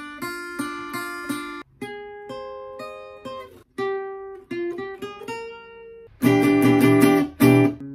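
Acoustic guitar played solo: single picked notes ringing out, broken by two short gaps, then louder strummed chords for the last couple of seconds.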